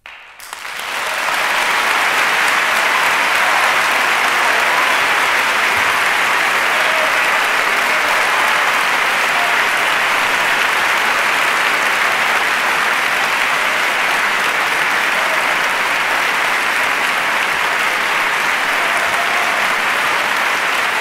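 Audience applauding, swelling in over about the first second and then holding steady and loud.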